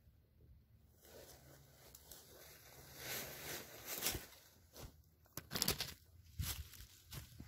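Footsteps crunching and rustling through dry fallen leaves, starting about a second in. In the second half come sharp knocks and scrapes as the camera is picked up and handled.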